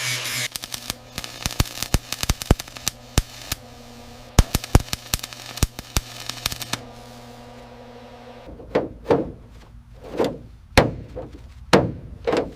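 Workshop hand-tool noise on metal: a few seconds of sharp, irregular clicks and taps, then a hammer striking metal about eight times, roughly every half second, each blow ringing briefly. A steady low hum runs underneath.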